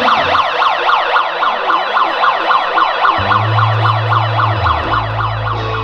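Handheld megaphone's siren sounding a rapid yelp, a wail that sweeps up and down about five times a second. A held low bass note comes in about three seconds in.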